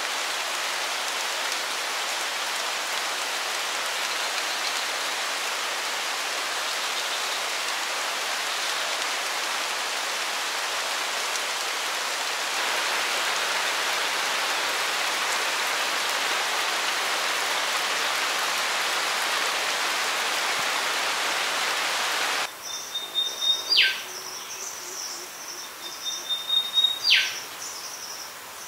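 Steady heavy tropical rain falling on rainforest foliage and a river. Near the end it cuts to a quieter forest with a high steady insect drone and a bird calling twice, each call a high whistle ending in a quick downward note.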